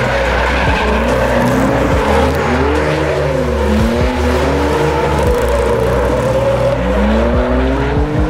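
BMW E46 drift cars' engines revving, the pitch rising and falling again and again as they slide, with tyres squealing.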